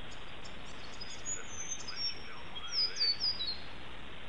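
Bird calls: a run of high whistled notes, several sliding down in pitch, loudest about three seconds in, over a steady hiss.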